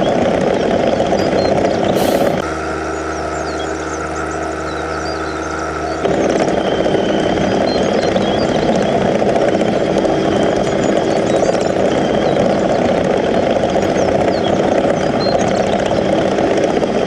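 Engine running steadily, as of a tractor. About two seconds in it switches abruptly to a quieter, smoother hum, then cuts back to the rougher running sound about six seconds in.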